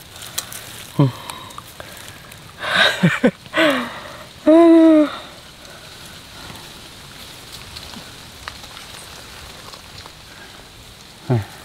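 A man's short wordless grunts and exclamations, the loudest a held vocal sound about four and a half seconds in, over a steady faint hiss. He is out of breath from landing and unhooking a fish.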